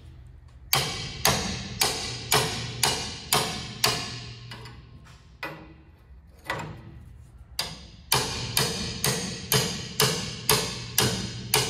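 Hammer blows on a wrench fitted to a rusted nut, metal on metal, each strike ringing briefly: an attempt to shock the seized nut loose. The blows come in a steady run of about two a second, thin out to a few single strikes midway, then pick up again in another steady run.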